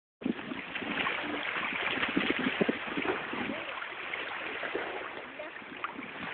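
Wind on the phone microphone and small lake waves lapping against the shore: a steady rushing noise with irregular short splashy knocks.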